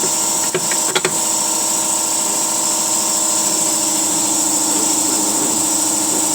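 A steady machine hum with a high hiss. Two short sharp clicks come about half a second and one second in.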